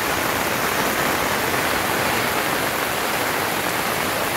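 Steady hiss of heavy rain and muddy floodwater rushing down a dirt street, the water of an overflowing ravine.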